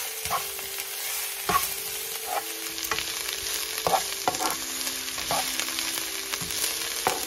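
Baby bok choy sizzling in hot oil in a nonstick frying pan as it is stir-fried, with a plastic spatula scraping and tapping against the pan about once a second.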